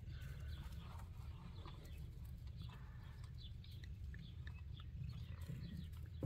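Faint, short, high-pitched animal calls scattered through, over a steady low rumble.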